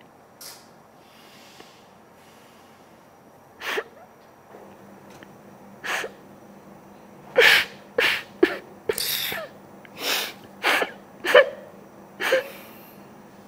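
A woman crying, with short sniffs and gasping sobs that are sparse at first and come thick and fast in the second half.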